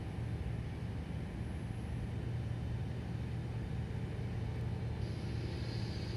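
Steady low rumble of a running engine or machine, with a faint high whine or hiss joining about five seconds in.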